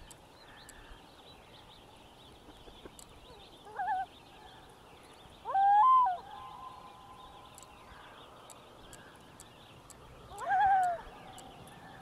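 Common loon calling three times over open water: short, wavering calls, the loudest about halfway through trailing into a faint held note.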